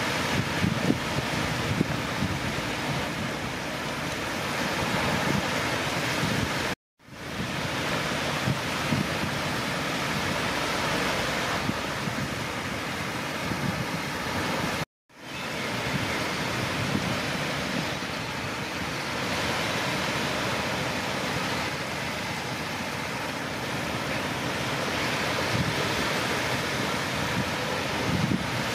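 Wind buffeting the microphone over the steady wash of surf breaking on a beach. The sound drops out twice, briefly.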